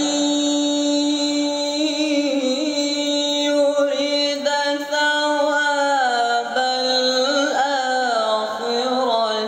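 A teenage boy reciting the Quran in melodic tilawah style into a handheld microphone, in a voice that has recently broken: one long held phrase with ornamented turns, the pitch stepping down about six seconds in, ending near the end.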